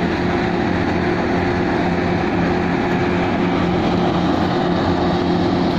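Massey Ferguson 385 diesel tractor running a wheat thresher, the engine and the threshing machine humming steadily together at a constant pitch.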